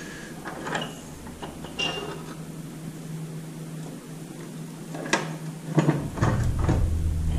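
Iron latch and plank door of a wooden cabinet being worked by hand: scattered clicks and knocks, the sharpest about five and six seconds in, over a steady low hum.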